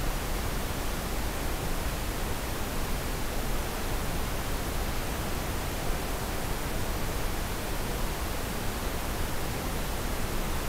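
Steady, even hiss of a night-vision camera's microphone and recording electronics, with no distinct sound standing out.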